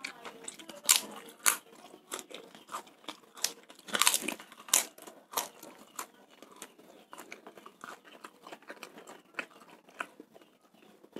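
Close-miked crunching and chewing of crisp fried crackers (kerupuk) with mouthfuls of fried rice, in irregular sharp crackles, loudest in the first half and fainter later.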